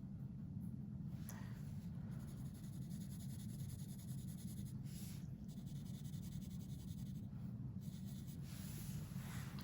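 Faint drawing strokes on paper, a few soft scratches, over a steady low hum.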